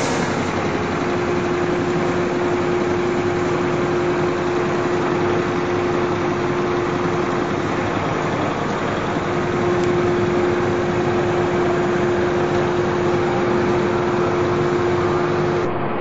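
YES-700GX band sawmill running steadily: a constant mechanical hum with one steady whining tone.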